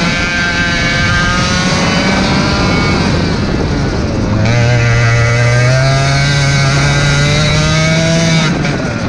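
Racing kart engine heard onboard at speed. Its pitch falls about four seconds in as the kart slows for a corner, then climbs steadily as it accelerates out, and drops again shortly before the end.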